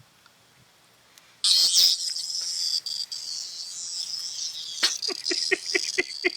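A cicada held in a Labrador's mouth buzzing: a loud, harsh, high buzz that starts suddenly about a second and a half in and carries on, easing a little toward the end. Near the end there is a quick run of short knocks or snorts, about four a second.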